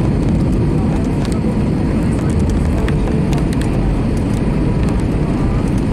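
Airliner landing, heard from inside the cabin: a steady, loud low rumble of the engines and the wheels on the runway, with a few faint clicks and rattles.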